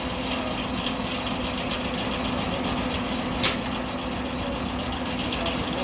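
Sawmill belt-driven by a steam traction engine, running with a steady hum, and one sharp click about halfway through.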